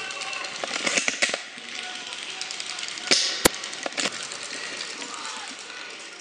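Airsoft gunfire: short hissing snaps from the Snow Wolf M24 spring sniper rifle and other airsoft guns, a few in all, with a sharp click about half a second after two of them.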